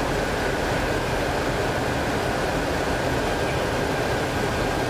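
Steady rush of engine and airflow noise inside a C-17 Globemaster III's cockpit in flight, with a thin steady whine above it.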